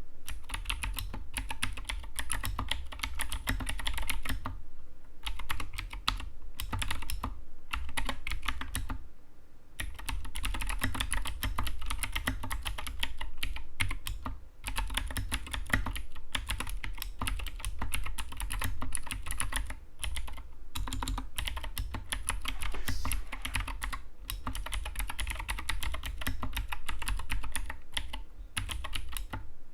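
Typing on an Anne Pro 2 60% mechanical keyboard: a fast, continuous run of key clacks, with short pauses about five, nine and fourteen seconds in.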